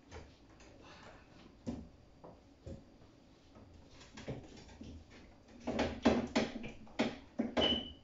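Things being moved about in a fridge: scattered knocks and clicks, then a quick run of louder knocks and clatter from about six seconds in, with a short squeak near the end.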